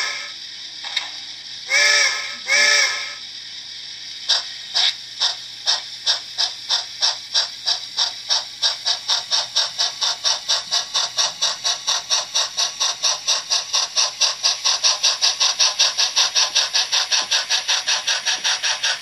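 Model steam locomotive sound decoder on a Bachmann On30 Climax, heard through its small onboard speaker: the end of a whistle blast, then two short whistle toots about two seconds in. From about four seconds in, exhaust chuffs start slowly and quicken steadily as the locomotive gets under way, over a faint steady motor hum.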